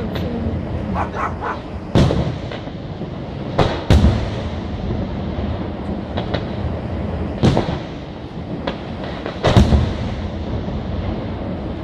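Aerial firework shells bursting: about four loud bangs, roughly every two seconds, with smaller reports between them over a continuous rumble of the display.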